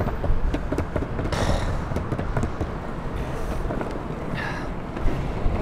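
Longboard wheels rolling over concrete pavement and paving slabs: a steady rumble with frequent short clicks as the wheels cross the joints, with wind buffeting the microphone.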